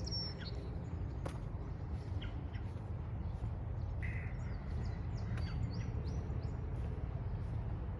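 Wild birds chirping in short, high calls, a cluster of them about five seconds in, over a steady low rumble.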